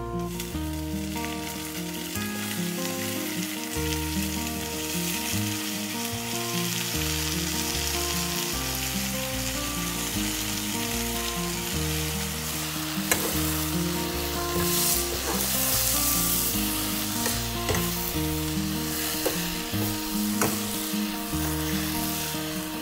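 Water spinach and diced potato frying in hot oil in a hammered metal saucepan: a steady sizzle that begins as the greens drop in. From about halfway, a steel ladle stirring, with sharp scrapes and knocks against the pan.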